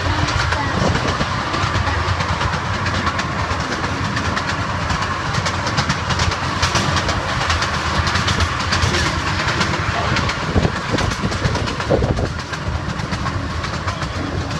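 Open-sided zoo tram running along a paved road, heard from inside a carriage: a steady rumble with continual rattling clicks from the carriage.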